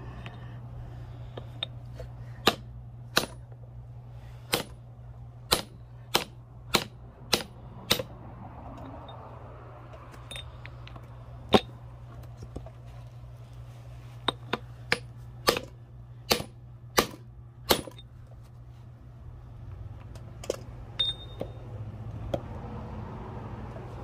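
Sharp metal-on-metal hammer blows on the U-joint yoke of a 2004 Jeep Wrangler TJ rear driveshaft, knocking the old U-joint's bearing caps and clips loose. The blows come in two runs about half a second to a second apart, with a few more near the end, over a steady low hum.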